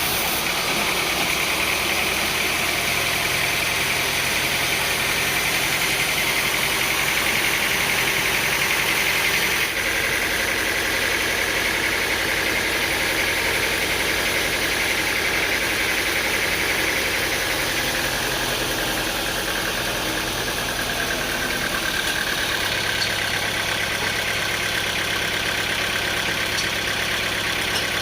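Sawmill machinery running steadily: a continuous mechanical drone with a high whine that shifts slightly in pitch a couple of times.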